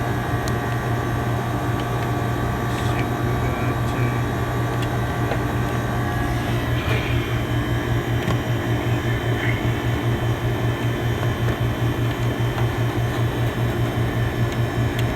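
Walk-in freezer's refrigeration unit running, its compressor and fan giving a steady low hum. About halfway through, the hum takes on a regular pulsing beat.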